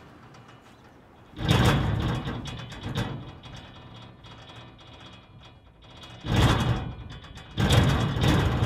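Playback over loudspeakers of a field recording of an unidentified mechanical sound: irregular rasping noise that swells in loud surges about a second long, the first about a second and a half in and two more near the end, with quieter noise between.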